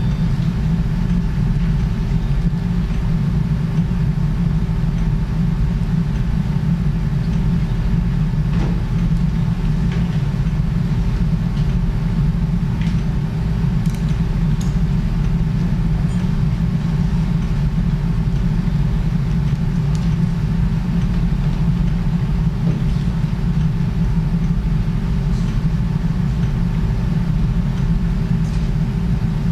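Steady low machine hum with a faint steady tone above it, unchanged throughout, with a few faint ticks.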